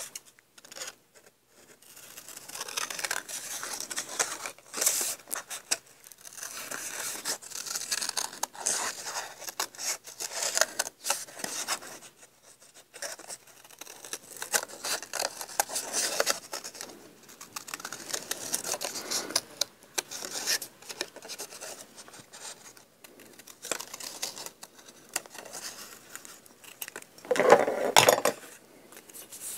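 Scissors cutting paper in a run of short, irregular snips and scrapes, with a louder brief rustle about a second before the end.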